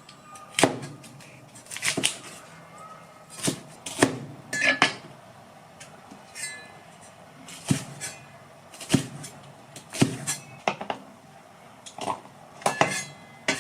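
Kitchen prep sounds: irregular knocks and clinks of utensils and dishes, roughly one a second, some with a short ringing tone.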